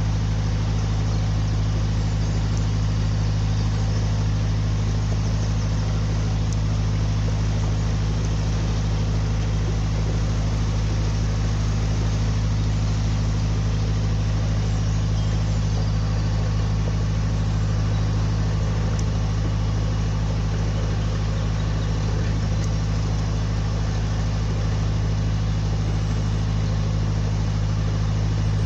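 Narrowboat's inboard diesel engine running steadily while the boat cruises at a slow walking pace: a constant low hum that does not change in pitch or level.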